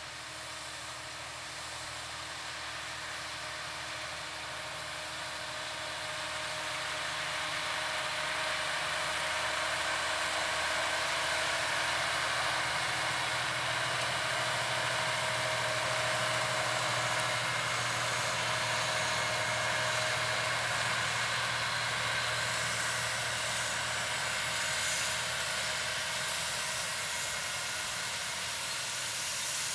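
New Holland T7.290 tractor's six-cylinder diesel engine running steadily under load, pulling a Horsch Serto 12 SC seed drill as it works the soil, with a steady rushing noise from the drill over the engine's hum. It grows louder over the first several seconds, then holds steady.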